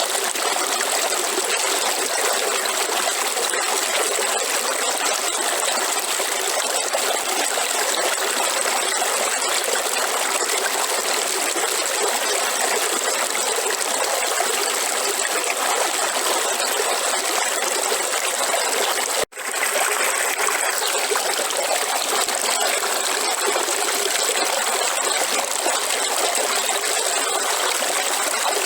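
River water flowing and babbling in a steady rush, cutting out for a split second about two-thirds of the way through.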